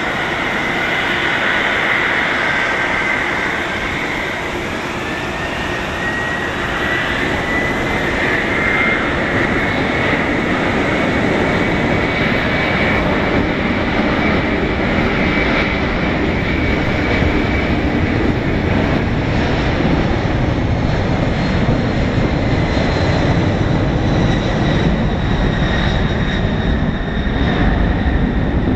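McDonnell Douglas MD-11F trijet freighter's engines at takeoff thrust during the takeoff roll: a loud, steady jet noise with a high fan whine that rises a little in pitch over the first several seconds. The low rumble grows as the aircraft gathers speed toward rotation near the end.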